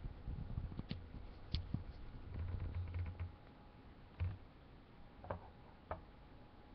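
Scattered light clicks and taps of small objects handled on a wooden tabletop, with low rumbling handling noise in the first half and a few sharper clicks in the second half.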